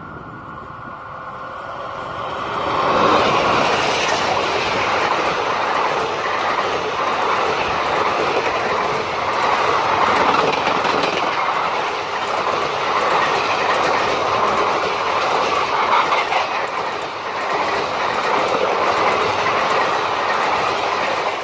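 Express train of ICF passenger coaches behind a WAP4 electric locomotive passing close by at speed. The sound builds over the first three seconds as the locomotive comes by, then holds as a steady, loud noise of coach wheels on the rails.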